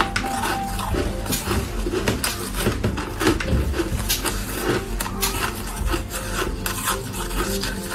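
Frozen ice balls being crunched and chewed in the mouth: a continuous run of rasping crunches.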